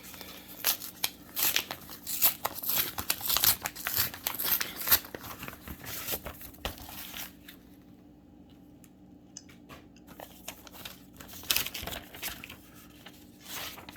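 Plastic packaging crinkling and tearing as trading cards are unwrapped and handled by hand, in dense bursts of crackles, a pause of a few seconds, then more crinkling near the end.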